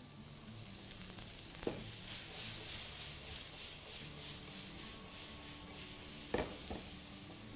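Chopped onion and pepper sizzling in oil in a pan, the sizzle swelling and pulsing as it is stirred, with three short knocks, one about two seconds in and two close together near the end.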